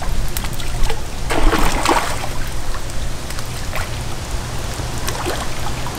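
Crevalle jacks striking cut bait at the water's surface: a few splashes and swirls, the largest about one and a half seconds in, over a steady low rumble.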